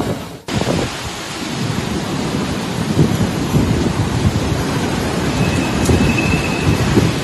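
Typhoon storm noise: wind and heavy rain with a low rumble, gusts buffeting the microphone. It breaks off briefly about half a second in, then carries on.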